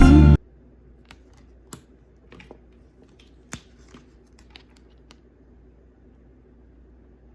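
Background music cuts off abruptly just after the start. Then come a few faint, scattered clicks and taps of tarot cards being handled and flipped through.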